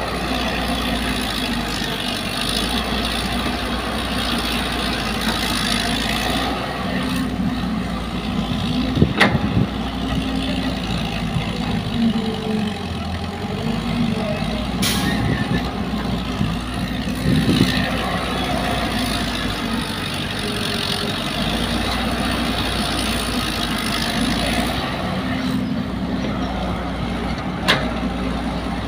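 Caterpillar crawler excavator's diesel engine running steadily under hydraulic load as it digs soil and swings it to a dump truck, with the truck's engine idling. A few sharp knocks stand out, about nine seconds in, midway, and near the end.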